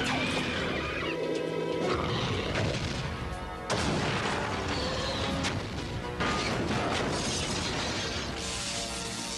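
Animated-series soundtrack: background music mixed with crashing and smashing sound effects, with sudden loud hits about four, five and a half and six seconds in.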